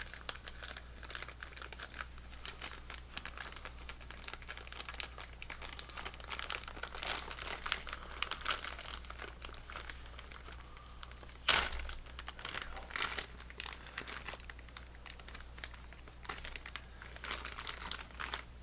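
Packaging crinkling and rustling as a microphone is worked out of its box, with irregular small crackles and one sharper crack about two-thirds of the way through.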